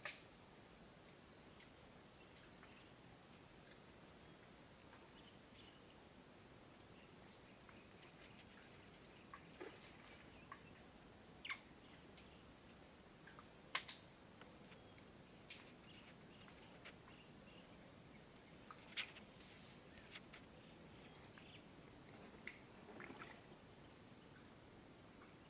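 Steady high-pitched drone of insects, with a few brief sharp clicks over it.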